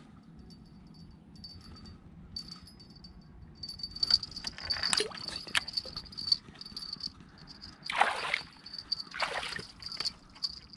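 A hooked black bass splashing and thrashing in the water of a narrow gap between concrete breakwater blocks. There is smaller splashing about four to five seconds in, then two strong splashes about eight and nine seconds in.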